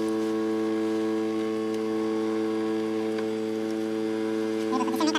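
Handheld hot air blower running steadily with an even, unchanging hum as it blows on a water-damaged phone circuit board to dry it. A voice comes in near the end.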